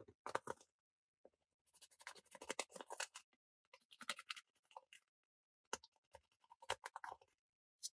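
Pointed stick scraping and crushing pressed eyeshadow powder in a plastic palette: several bursts of rapid, crumbly scratching with short pauses between.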